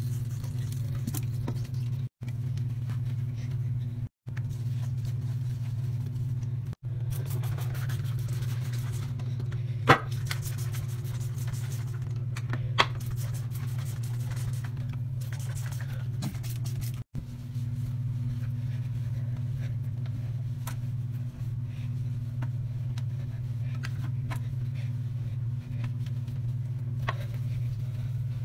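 A steady low hum, cutting out briefly four times, with two sharp clicks about ten and thirteen seconds in and a few seconds of faint quick scraping strokes just before the first click.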